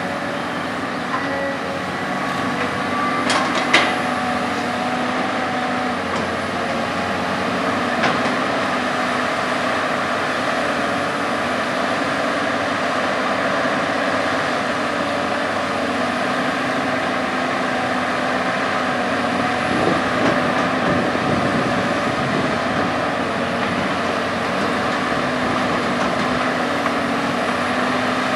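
CAT 320D hydraulic excavator working steadily as it digs, its diesel engine running under load with hydraulic whine that shifts in pitch as the boom and bucket move. A few sharp knocks stand out, the loudest about three to four seconds in.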